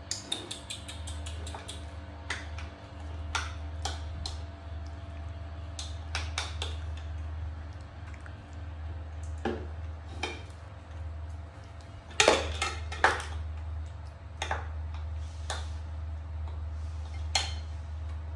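A spoon and dishes clinking and tapping on ceramic plates and a bowl during a meal, in scattered sharp knocks with the loudest cluster about twelve seconds in, over a steady low hum.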